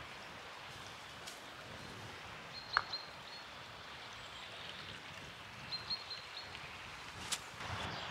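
Quiet outdoor ambience: a steady faint hiss of open air and distant water, with a few short, high bird chirps about three and six seconds in. A sharp tick comes near the end.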